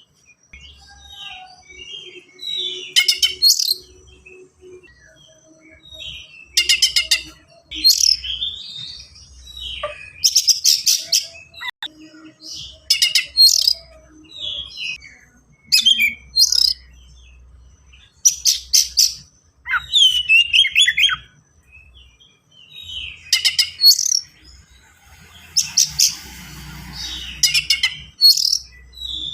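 Oriental magpie-robin (kacer) singing a fast, tightly packed song full of varied and mimicked phrases. The loud high-pitched bursts come every one to three seconds, with quieter twittering between them.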